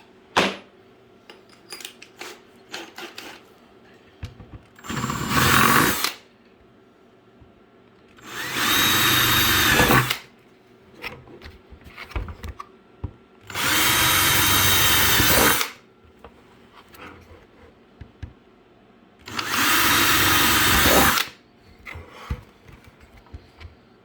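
Power drill with a 23/64 inch bit boring holes in a plastic 5 gallon bucket for chicken watering cups. It runs in four bursts of about two seconds each, with small knocks and clicks of handling in between.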